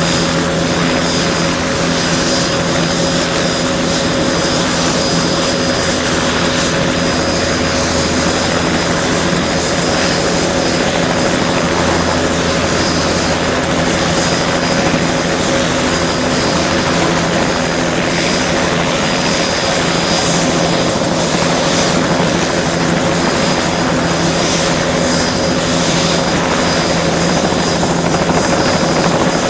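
Helicopter running steadily: a constant low rotor drone with steady high whines over it, holding the same pitch and level throughout.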